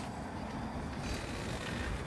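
Wind blowing across the microphone: a steady low rumble with a faint hiss.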